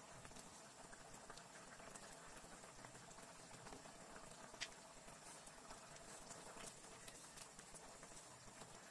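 Thick coconut-milk sauce simmering in a frying pan, faint and with small irregular pops, and one sharper click about four and a half seconds in.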